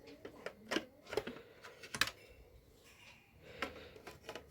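A handful of sharp plastic clicks and taps from handling a desktop computer's internal parts while a clip is being fitted, the loudest about two seconds in.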